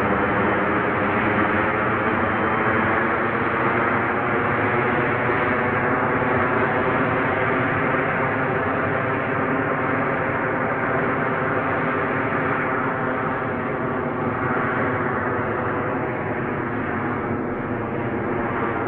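Gas-turbine engine of a large RC sport jet running steadily in flight, a continuous rushing sound whose tone shifts slowly toward the end.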